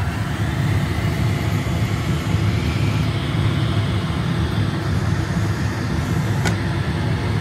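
A steady, low mechanical hum and rush with no change through the whole stretch, of the kind a running fan makes, and one light click about six and a half seconds in.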